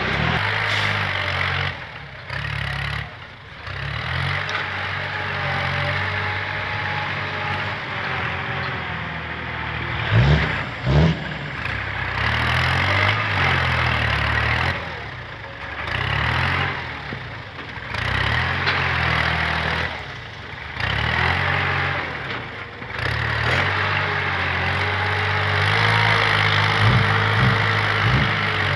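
Kubota tractor's diesel engine working under load as its front blade pushes and grades soil, the engine note rising and falling every few seconds. Two sharp knocks come about ten seconds in.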